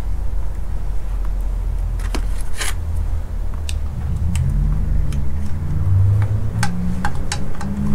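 Scattered sharp metallic clicks and light rattles as the shift cables and their clips are worked onto the short-shift box, over a steady low rumble that has a low hum in it from about halfway on.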